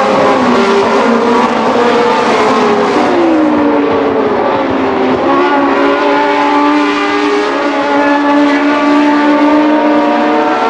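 1970s Formula One cars' engines running hard at racing speed, a continuous high engine note that drops in pitch about three to four seconds in and then holds fairly steady.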